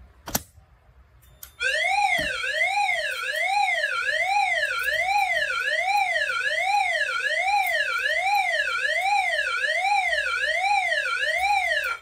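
An agent-release pull station's handle snaps down with a sharp click. About a second and a half later the Notifier DVC voice-evacuation system sounds its alarm tone through the speakers, a loud tone sweeping steadily up and down about once a second, for the activated suppression releasing system. The tone cuts off suddenly just before the voice message.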